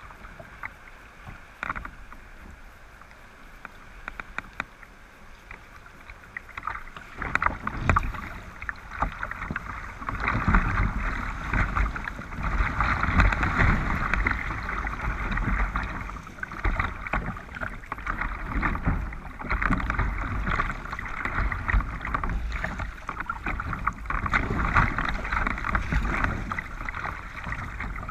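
River water rushing and splashing against the bow of a kayak as it runs a small rapid, heard close up from the bow. Quieter for the first several seconds, then a loud, continuous rush with many small splashes from about ten seconds in.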